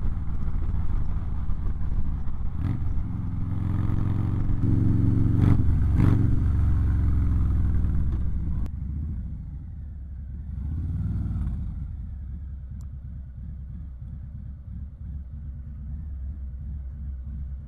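Harley-Davidson Low Rider ST's Milwaukee-Eight 117 V-twin running at road speed with wind noise, its note rising as it accelerates about four to six seconds in. After a sudden cut it is quieter, swells briefly once more, then runs low and steady.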